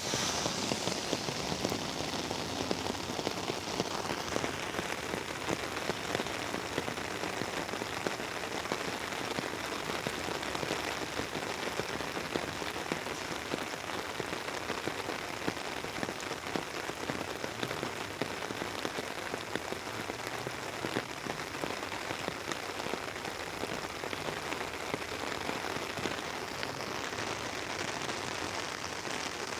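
Rain pattering steadily on an umbrella, a dense, even hiss of countless drop impacts.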